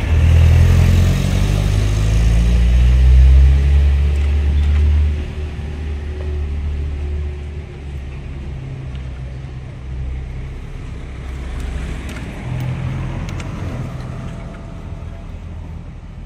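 A motor vehicle engine running nearby: a low rumble that is loudest over the first five seconds and then drops away and carries on more quietly.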